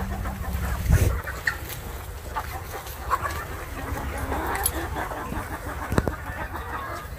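Flock of domestic chickens, hens and roosters, clucking continually while they feed. A dull thump about a second in is the loudest moment, and a sharper knock comes near the end.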